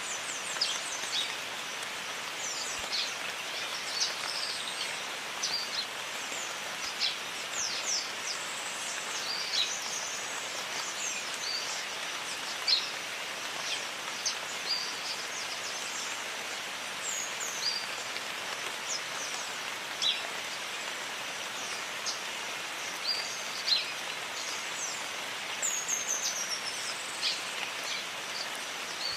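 Steady rain falling in a jungle, an even hiss, with many short, high chirping bird calls scattered through it.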